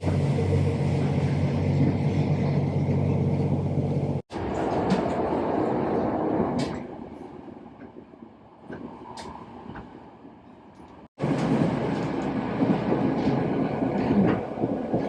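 Train running, in three short stretches joined by abrupt cuts: a loud passage with a steady low hum, a quieter fading middle part with a few clicks, then loud rumbling noise again.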